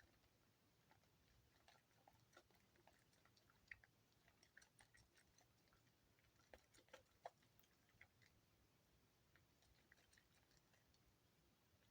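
Faint wet squishing and crackling clicks of a bar of EXXE soap being lathered with water, irregular and sparse, with busier clusters in the middle.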